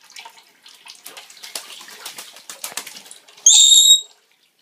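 Pet bird splashing and flapping while it bathes in water from a running tap, with quick, irregular splashes. Near the end the bird gives one loud, harsh, high scream lasting about half a second.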